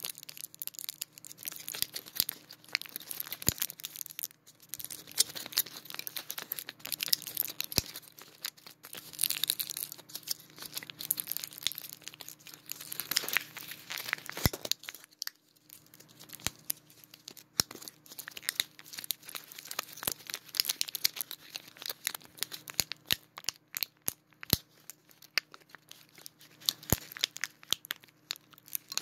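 Foil and plastic gum packaging crinkled and handled close to the microphone: dense, irregular crackling and crinkling with scattered sharp clicks and a few brief pauses.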